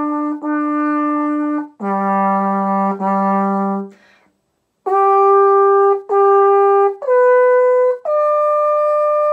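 Valveless post horn in F played as a short call on its natural harmonics. Two notes on one pitch and two lower ones, then, after a breath, two more that climb in steps to a long held top note.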